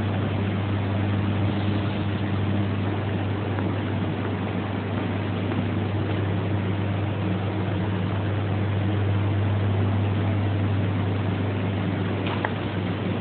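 A machine running steadily: a strong low hum over an even wash of noise, with no knocks or impacts.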